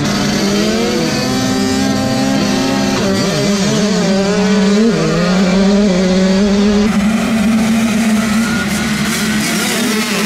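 Dirt bike engines at a motocross start: the supermini rider's own bike, heard on board, accelerating hard off the starting gate, its pitch climbing and stepping down at each gear change. About two-thirds of the way in, this gives way to a pack of dirt bikes racing past.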